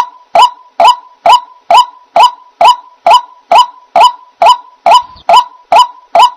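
White-breasted waterhen calling: a harsh, honking note repeated very evenly about two times a second, with a faint steady tone running underneath.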